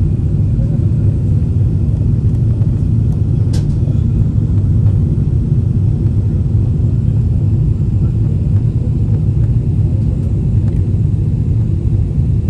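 Steady low rumble of a jet airliner's engines and rushing air, heard inside the passenger cabin during the descent to land. A single brief click comes about three and a half seconds in.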